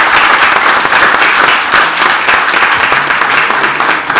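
Audience applauding: many hands clapping in a dense, steady, loud patter.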